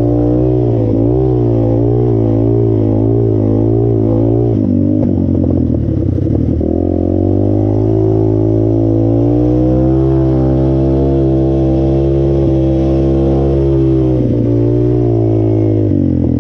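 Off-road vehicle engine running under throttle while riding, its pitch rising and falling as the throttle works. There are brief let-offs about five seconds in and again near the end.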